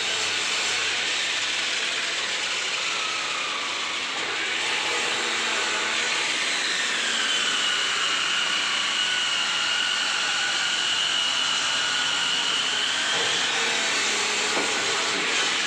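Woodworking power tool running and cutting wood, a steady loud whir. About six seconds in, its whine drops in pitch, holds low, and climbs back near the end.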